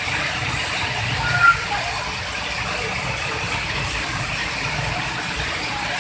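Steady rush of rain and floodwater on a street, with the low rumble of passing vehicles and faint voices underneath. A short high tone sounds once about one and a half seconds in.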